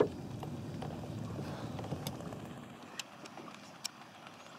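Faint water sounds around a drifting canoe, a soft low wash that slowly fades, with a few light clicks about a second apart in the second half.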